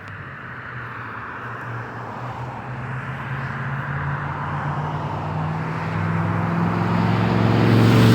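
A motor vehicle approaching, its engine hum and road noise growing steadily louder over several seconds.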